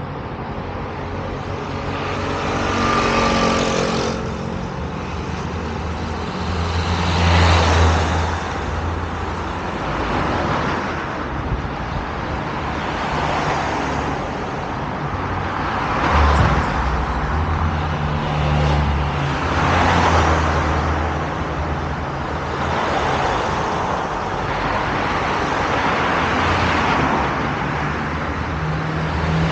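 Road traffic on a multi-lane highway: cars pass close by one after another, each swelling and fading in tyre and engine noise about every three seconds, over a steady low rumble of traffic.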